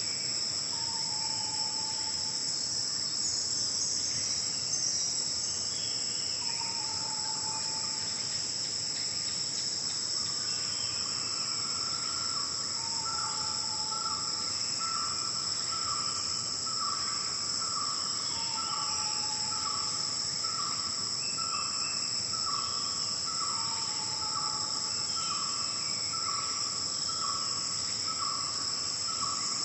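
Steady, high-pitched chorus of forest insects, with bird calls over it: a short, low note that recurs every five or six seconds and, from about a third of the way in, another bird's single note repeated about once a second.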